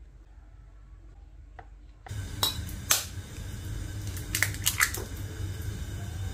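An egg being cracked open with a fork: two sharp taps of the shell against the metal about half a second apart, then a few cracks of the shell being pulled apart over a bowl, with a steady low hum behind.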